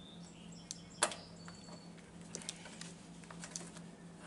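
Handling sounds of a lawn tractor's seat-switch wiring harness clip being worked into a square hole in the fender: one sharp click about a second in, then a few faint ticks, over a faint steady hum.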